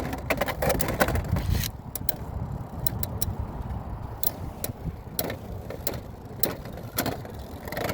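Two Beyblade X spinning tops, Chain Incendio and Arrow Wizard, battling in a plastic stadium: a steady whirring rattle with many sharp clicks where they strike each other and the stadium walls.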